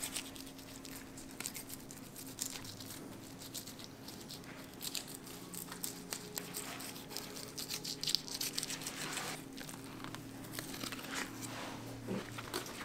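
Fillet knife slicing along a whole snapper, cutting through scales, skin and flesh in a run of crackly scraping and tearing strokes. A low steady hum runs underneath.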